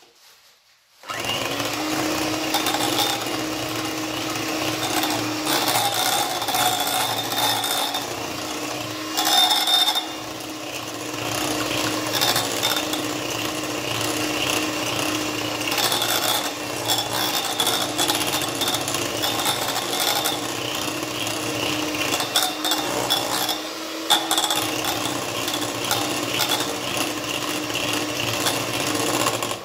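Electric hand mixer running, its beaters whipping thick cream with red food colouring. It starts about a second in, runs steadily with a few brief louder moments, and stops near the end.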